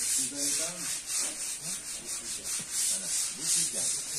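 Rhythmic rubbing or scraping strokes, about two to three a second, with faint voices underneath.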